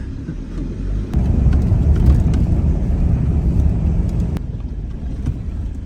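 A road vehicle running, with engine and road rumble heard from on board. It grows louder about a second in and eases off after about four seconds.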